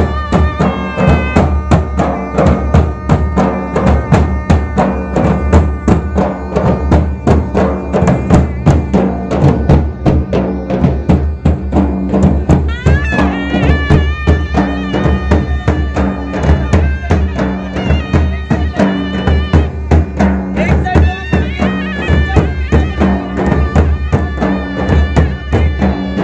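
Live traditional folk music driven by a large steel-shelled dhol beaten in a fast, steady rhythm, with a wavering high melody line over the drumming.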